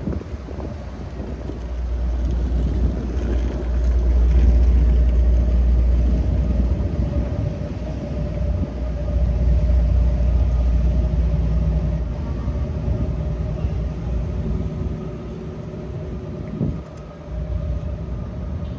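Low, heavy rumble with a steady hum, swelling about four seconds in and easing off after about twelve seconds: a metro train running across the bridge.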